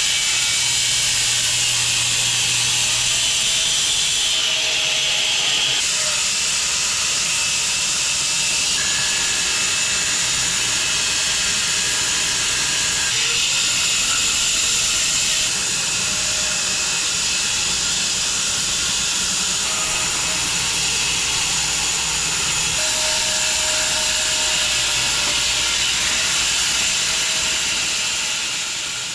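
Sawmill running steadily through a cut along a log, a loud, even hissing noise with a faint engine tone beneath. It fades out right at the end.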